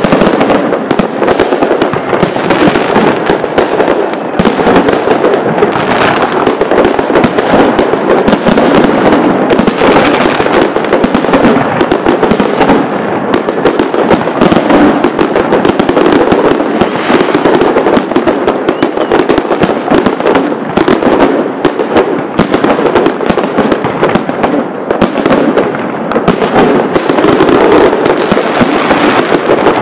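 Fireworks barrage: a dense, unbroken run of overlapping bangs and crackling with no pauses, very loud throughout.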